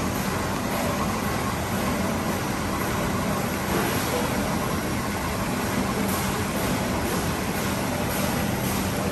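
Screw-press dewatering machine running steadily while pressing cow dung. It is a constant low mechanical hum over a wash of noise.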